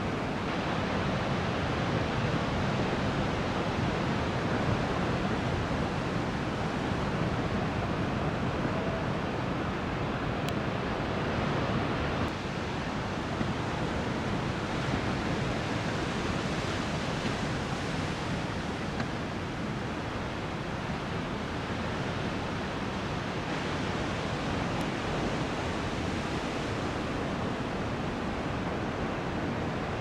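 Large 7-9 ft surf breaking, heard as a steady wash of noise that dips a little about twelve seconds in.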